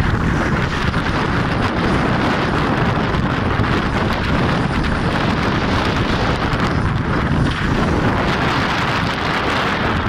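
Strong wind rumbling on the microphone aboard a boat in rough sea, with the rush of breaking water along the hull.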